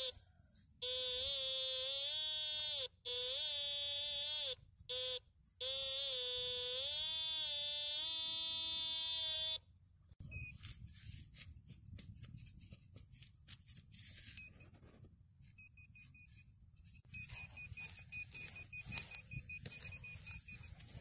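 Metal detector giving a target signal: a buzzy tone that warbles up and down in pitch and cuts in and out as the coil is swept over the ground. It stops about ten seconds in. Then come quieter scraping and knocking sounds of digging in turf, with a faint high tone repeating near the end.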